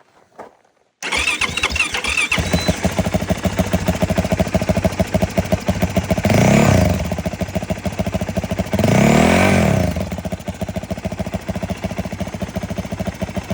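Yamaha WR450F dirt bike's 450 cc single-cylinder four-stroke, breathing through an exhaust with the restrictor cork still in. It fires about a second in with a brief starter whine, idles with an even beat, and is blipped up and back down twice.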